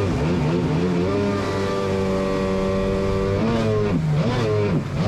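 Jet ski engine revving up and down, then holding a steady pitch for about two seconds before dropping and climbing again near the end.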